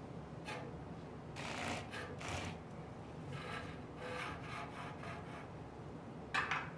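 Bicycle rim brushing against the truing stand's feeler gauge as the wheel spins, in a series of short scratchy rubs where the rim is still out of true, then a sharp click near the end.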